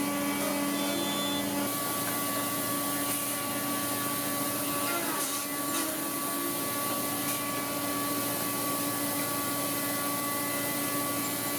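Woodworking machinery running steadily, with a constant hum and a high whine over a wide hiss.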